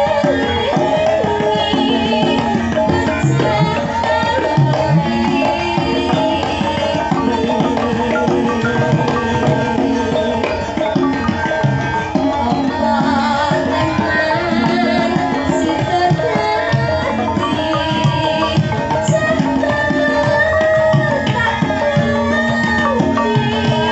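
Javanese gamelan playing in the pelog scale, with steady ringing metallophone notes and kendang hand-drum strokes, under a female sinden singing through a microphone with a wavering, ornamented vocal line.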